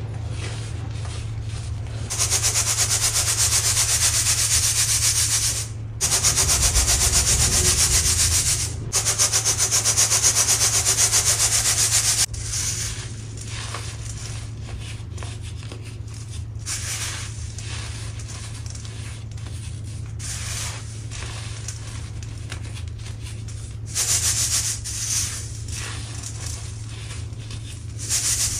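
Hands crushing and rubbing lumps of baking soda: a loud, steady, gritty hiss for about ten seconds, briefly broken twice, then softer scattered crumbling crackles as clumps are squeezed over a metal mesh sieve.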